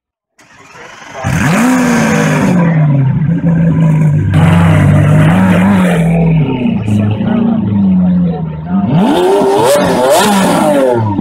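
Lamborghini Aventador LP 700-4's V12 engine starting with a loud flare of revs and settling to a steady idle with a few small blips. About nine seconds in it revs up sharply as the car pulls away.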